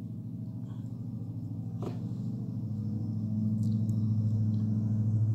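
A steady low hum that grows gradually louder, with a single short click about two seconds in.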